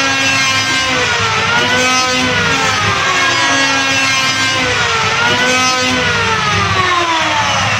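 Electric wood planer running. Its motor whine slowly sinks in pitch and twice swings quickly back up.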